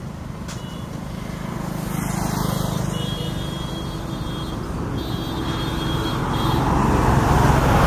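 Motor scooter riding along a road: engine and wind rushing over the microphone, growing louder as it picks up speed.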